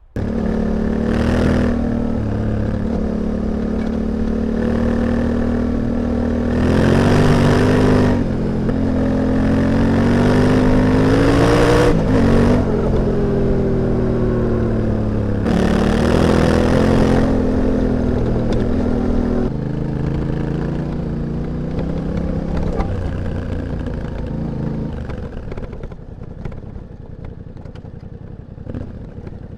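Yamaha Ténéré 700's 689 cc parallel-twin exhaust, recorded close to the silencer while riding, with the engine note rising and falling several times as the revs change. It cuts in suddenly, then eases off to a lower, quieter note over the last few seconds.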